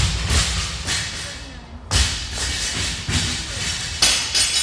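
A series of dull thuds from sit-ups on a glute-ham developer (GHD) machine, the heaviest coming about every two seconds with the reps.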